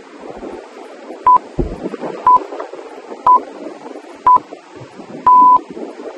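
Workout interval timer beeping a countdown: four short, high beeps a second apart, then one longer beep of the same pitch that signals the start of the next exercise.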